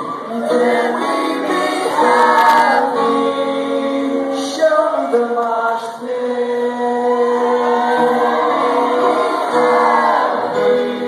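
Live band playing, with several voices singing held notes together over piano and bass.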